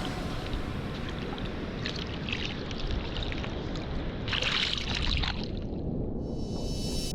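Ocean water sloshing and splashing over a steady low rumble, with louder hissing washes about two seconds in and again about four and a half seconds in.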